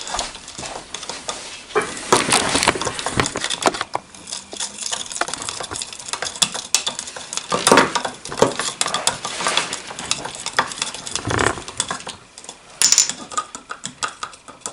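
Wooden stir sticks scraping and clicking irregularly against the inside of plastic cups as epoxy resin is mixed with pigment.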